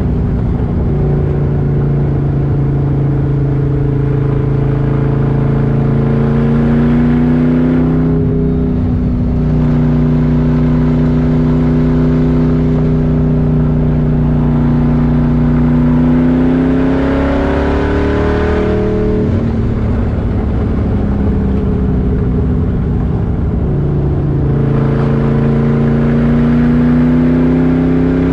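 383 cubic-inch stroker small-block Chevy V8 with a big cam, heard from inside the Corvette's cabin, pulling under load on the road. The engine note climbs steadily, falls away about eight seconds in, climbs again to a sharper rise near nineteen seconds, drops, and builds once more near the end.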